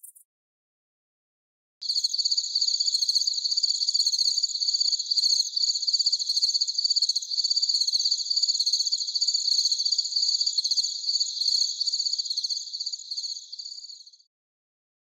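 Cricket chirping in a fast, continuous high-pitched trill, starting about two seconds in and stopping shortly before the end.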